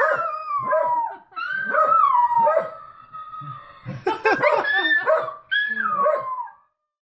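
Dog howling in long falling cries, broken by a quick run of short yips about four seconds in.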